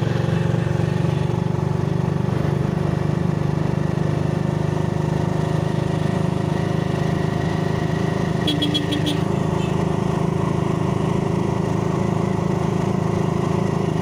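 Small motorcycle engine of a moving tricycle running steadily at cruising speed, with road noise. A brief, rapidly pulsing high sound comes about eight and a half seconds in.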